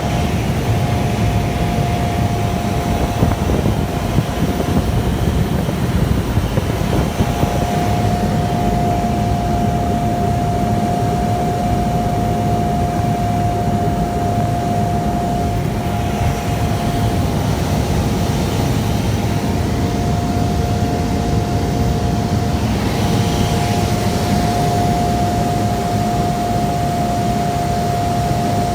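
Cessna Caravan's Pratt & Whitney PT6A turboprop engine and propeller running steadily in flight: a loud, even drone with a constant whining tone over it.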